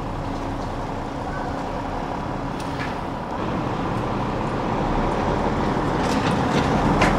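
Heavy truck's diesel engine running, growing louder from about halfway through, with a few sharp knocks near the end.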